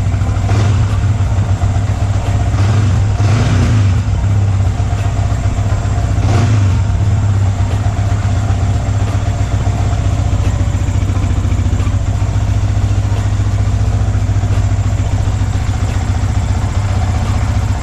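Yamaha New Vixion Lightning's 150 cc single-cylinder engine running at idle on a test start after the air filter is refitted. It rises briefly twice, about three and six seconds in, as the throttle is blipped.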